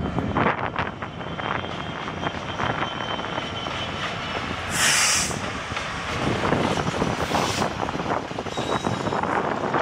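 Class 66 diesel freight locomotive passing, its EMD two-stroke V12 engine running, with a steady noise of wheels on rail as it hauls open wagons. A brief loud hiss comes about halfway through.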